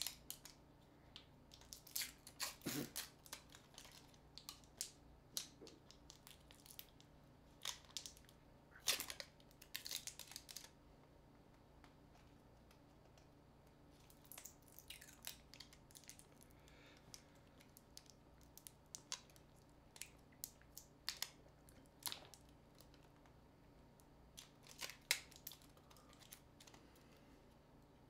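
Scattered small clicks, scrapes and tearing sounds of a smartphone being taken apart by hand, prying at its glued-in battery, which is hard to pull out. The handling noises come in bunches, stop for a few seconds about halfway, then start again.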